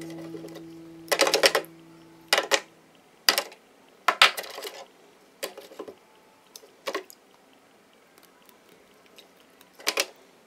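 Small gemstones clacking against each other and a hard dish while being handled and washed: about seven separate short clatters a second or so apart, the last near the end.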